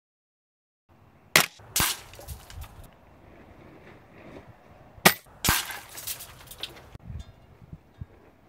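FX Crown .25-calibre PCP air rifle firing twice, about four seconds apart, with a third shot right at the end. Each sharp crack is followed less than half a second later by a second, slightly quieter crack.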